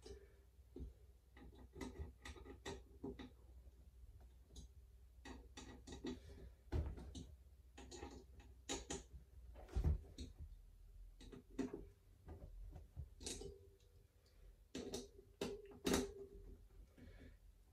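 Irregular clicks and light metallic taps of hand tools and bolts as a Magura MDR-P brake disc is fitted to a bike wheel hub, with louder knocks about ten seconds in and near the end.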